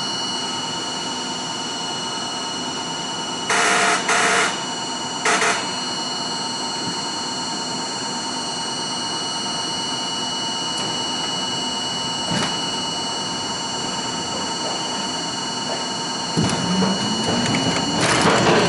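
R42 subway car standing at an elevated station, its equipment giving a steady hum with high whining tones, broken by three short bursts of hiss about four and five seconds in. Near the end the traction motors start with a whine rising steadily in pitch as the train pulls out.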